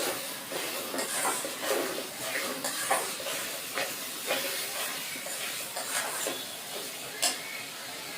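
Food frying in a cooking pan with a steady hiss, while a spatula stirs and scrapes it, giving scattered clicks and taps against the pan.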